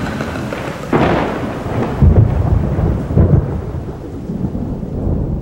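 Thunderstorm sound effect: a sudden thunderclap about a second in, then rolling rumbles of thunder over the hiss of rain, slowly fading.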